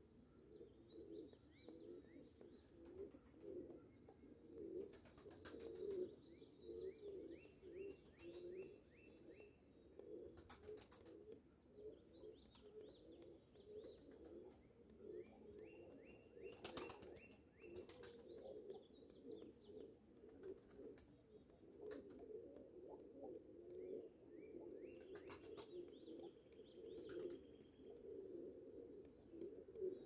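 Faint woodpecker tapping on a tree trunk in short clusters of knocks, while small birds chirp in quick runs of short high notes over a steady low hum.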